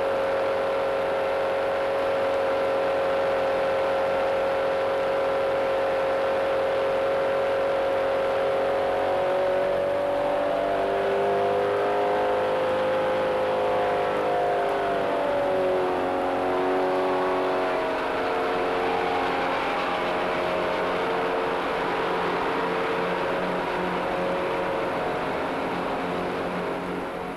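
Fell diesel locomotive's engines running, heard from the cab: a steady pitched drone that, about ten seconds in, shifts and splits into several gliding tones as further engines are coupled in to the gearbox through their hydraulic couplings.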